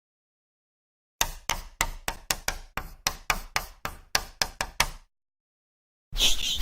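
Chalk writing on a blackboard: about fifteen sharp taps and short strokes, a few per second. Near the end, a chalkboard eraser starts rubbing rapidly back and forth across the board.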